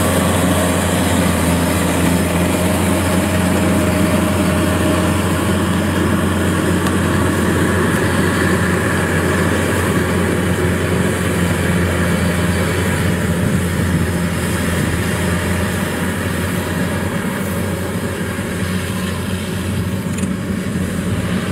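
Kubota DC-93 rice combine harvester at work cutting rice: its diesel engine and threshing machinery make a steady drone, a little quieter near the end.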